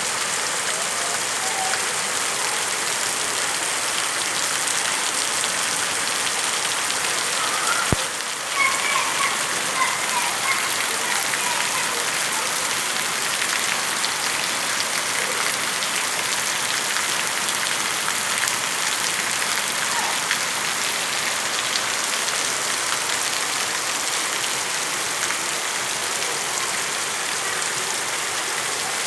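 Heavy rain falling steadily, an even hiss of drops on surfaces. A single sharp click sounds about a third of the way through.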